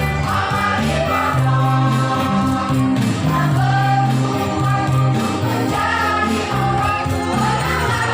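A choir singing in unison over an instrumental accompaniment with a held, stepping bass line.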